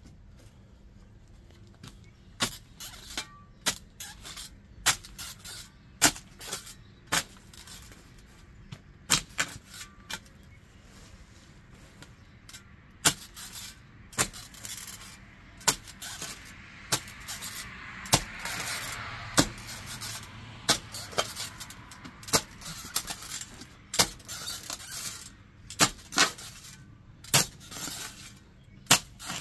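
Steel spade blade repeatedly chopping and scraping into packed soil and grit along a concrete sidewalk edge: sharp, irregular strikes about once a second, with a longer stretch of scraping about halfway through.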